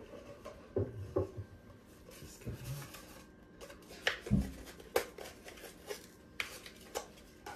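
Hands handling small objects at a desk: scattered light clicks, taps and rustling, with one dull thump a little over four seconds in.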